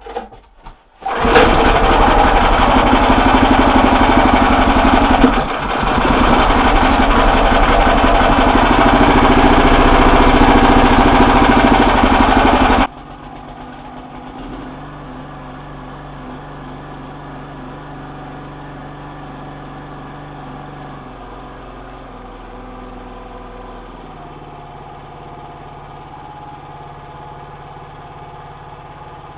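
Small gasoline engine on a towable backhoe starting about a second in and running loudly and steadily during its first-ever start. About 13 seconds in the sound drops abruptly to a much quieter steady engine hum.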